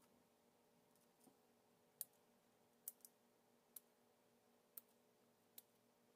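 Small hand cutters snipping through the thin support struts of a 3D print: about six sharp, separate clicks a second or so apart, over a faint steady hum.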